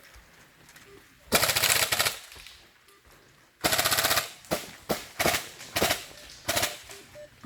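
Airsoft guns firing: a rapid burst of shots a little over a second in, another burst about halfway through, then a run of single shots.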